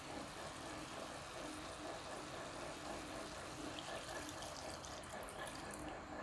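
Water poured from a plastic measuring jug into a hot wok of browned pork, splashing onto the meat for about two seconds from about four seconds in, over a steady sizzle from the pan.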